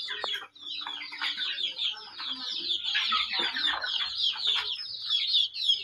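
A flock of young chickens peeping: many short, high, falling cheeps overlapping without a break, with a few lower calls among them.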